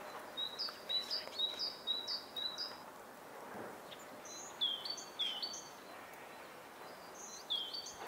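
Tits singing: a quick run of about six repeated two-note phrases, then a few high notes that each drop in pitch, and another near the end, over a steady background hiss.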